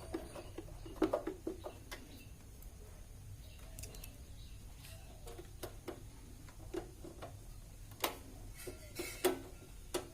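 Scattered light clicks and knocks of a UPS battery backup's plastic casing and internal parts being handled and fitted back together, with a cluster about a second in and sharper ones near the end.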